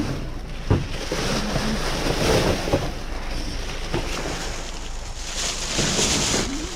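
Steady rushing noise, like wind on the microphone, with a few light knocks, one about a second in and another about four seconds in.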